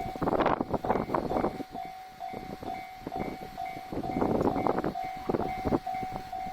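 Level-crossing warning bell ringing on and off about twice a second while a three-car JR Shikoku 1200-series diesel railcar train passes over the crossing, its wheels clattering in bunches over the rail joints.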